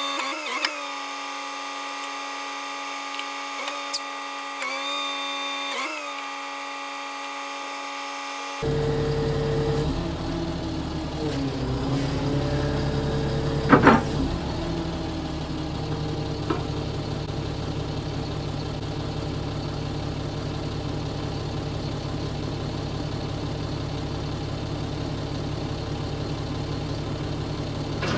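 Hydraulic whine of the M1089A1 military wrecker's underlift being worked, steady in pitch but dipping briefly a few times as the controls are moved. About nine seconds in the sound switches to the truck's diesel engine idling steadily, with one loud metallic clank a few seconds later.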